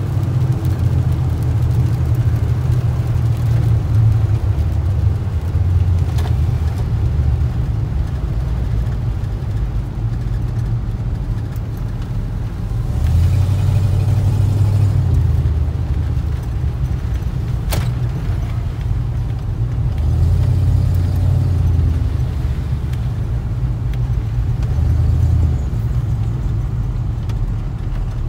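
Engine and road rumble heard from inside a moving vehicle on wet roads, low and steady, swelling louder a few times. A single sharp click about two-thirds of the way through.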